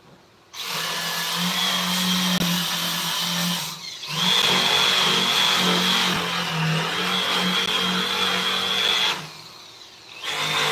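Small high-speed electric power tool running in three stretches, a steady high whine over a low hum and a rough noise. It starts about half a second in, stops briefly near four seconds, and stops again near nine seconds before starting once more just before the end.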